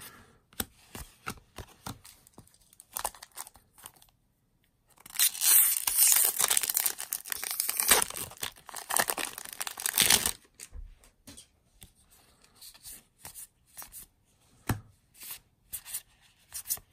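A Magic: The Gathering booster pack's foil wrapper being torn open and crinkled, a loud crackling tear starting about five seconds in and lasting about five seconds. Before and after it, soft light clicks of trading cards being flicked through by hand.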